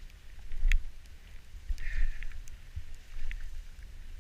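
Wind buffeting the microphone in gusts during a downhill run on snow, with a few sharp ticks and a brief hiss of snow scraping about two seconds in.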